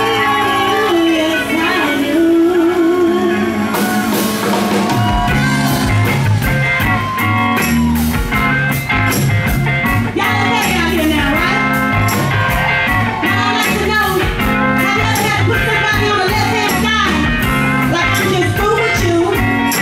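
Live soul-blues band playing on electric guitars, bass and drum kit. A held, wavering note opens, then the drums come in with a steady beat about four seconds in.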